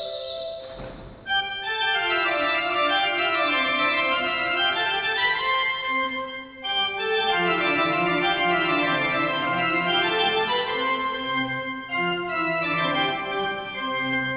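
Late-18th-century Italian pipe organ (Roccatagliata/Ciurlo, 1794) playing a Baroque keyboard sonata on a bright full principal chorus (ripieno), in fast running scales that rise and fall. The playing starts sharply about a second and a half in, with short breaks between phrases about six and a half and twelve seconds in.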